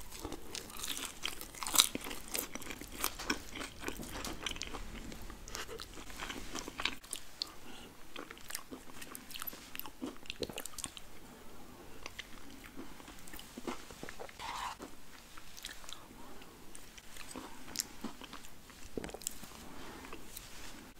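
Close-miked mouth sounds of eating McDonald's food: crunchy bites and chewing of fried food, the loudest crunch about two seconds in, then mouthfuls of McFlurry ice cream from a spoon, with many small crackling clicks.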